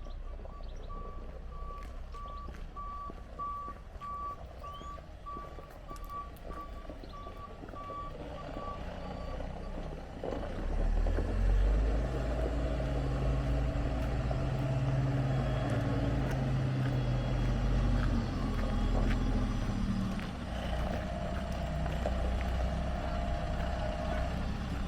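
A vehicle's reversing alarm beeps steadily, about two beeps a second, and stops about nine seconds in. A heavy vehicle engine then starts running close by and louder, from about ten seconds in.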